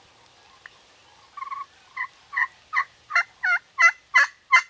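A series of about nine turkey yelps, each note breaking from high to low, about three a second, growing louder as the series goes on. A faint click comes just before.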